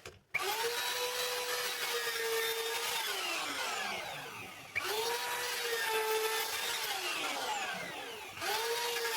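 Hand-held wood router switched on three times: each time its motor whine climbs quickly to a steady high pitch, runs for a few seconds, then winds down as the motor coasts to a stop.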